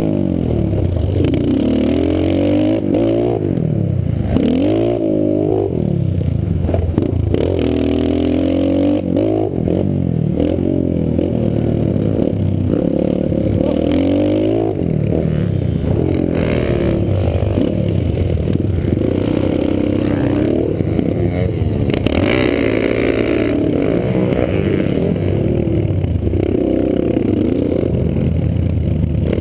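Pit bike engine being ridden hard, revving up and dropping off again and again as the throttle is worked through corners and over jumps.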